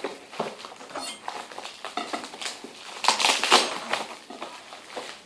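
Irregular rustling, scraping and clicking of packaging being handled, with the loudest burst of rustling about three seconds in.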